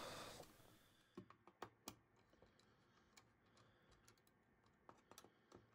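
Faint, scattered clicks of a screwdriver working screws into a linear amplifier's circuit board and heatsink, as the screws are tightened to press the new transistor onto the heatsink. The clicks come in a small cluster about a second in and again near the end, with near silence between.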